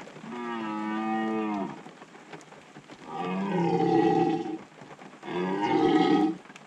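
Red deer roar call sounded three times: three long, pitched bellows, the last one shorter, used to draw in red deer.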